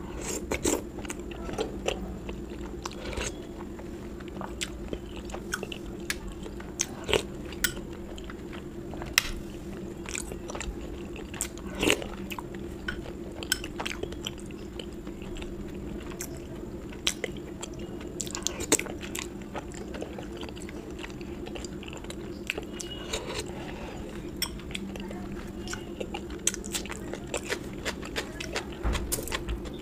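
Close-miked eating: a person chewing and biting food with crunchy bites, making irregular sharp clicks, over a steady low hum.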